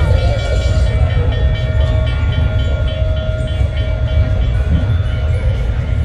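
Diesel locomotive sound: a steady, deep engine rumble, with a held horn-like chord of steady tones through the middle.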